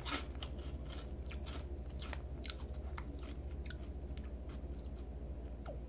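Crunchy wasabi-flavoured crab-shaped crackers being chewed close to the microphone: a run of faint, irregular crunches over a steady low hum.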